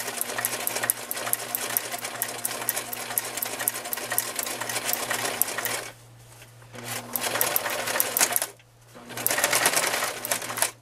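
Electric sewing machine stitching through fabric: a fast, even clatter of needle strokes over a steady motor hum. It stops briefly about six seconds in and again about two seconds later, running on after each pause.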